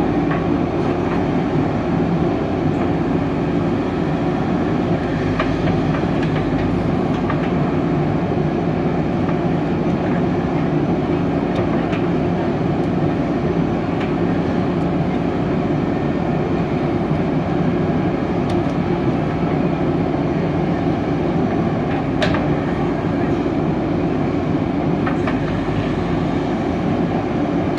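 Diesel engine of a JCB 3DX backhoe loader running hard and close, a loud steady rumble with a few scattered metallic clanks.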